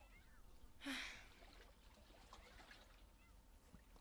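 Near silence: faint outdoor background hush, with one short soft burst of noise about a second in.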